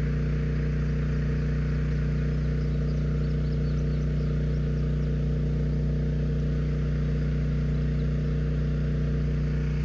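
Small engine-driven water pump running at a steady speed, pumping pond water through hose.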